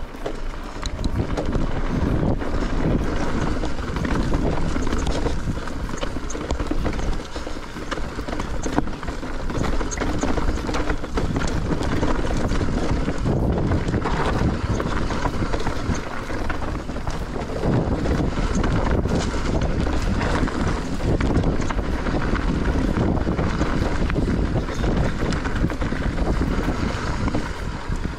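Wind buffeting the microphone and tyres rumbling over a dirt trail as a mountain bike is ridden fast downhill, with small clicks and knocks from bumps.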